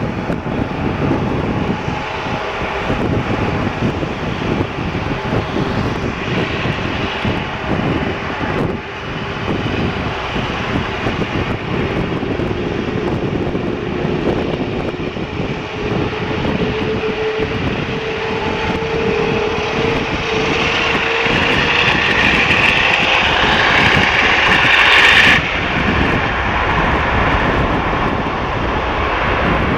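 Jet engines of a British Airways Airbus A380 (Rolls-Royce Trent 900s) on takeoff: a steady roar with a faint, slowly shifting tone, building gradually to its loudest and then dropping off suddenly about five seconds before the end.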